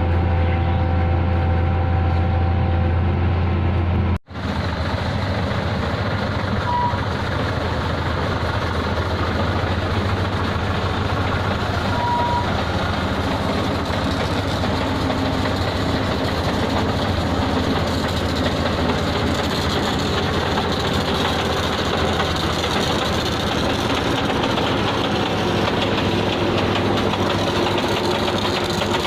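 Heavy road-paving machinery running. A steady low engine hum lasts about four seconds and breaks off suddenly, then a rougher, noisier engine runs on, with two short beeps.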